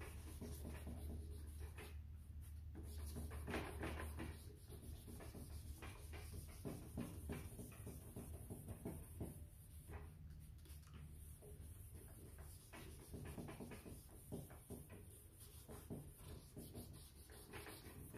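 Faint, irregular back-and-forth scrubbing of a wet sanding disc on a foam hand pad against a faded plastic headlight lens, with a low hum during the first few seconds.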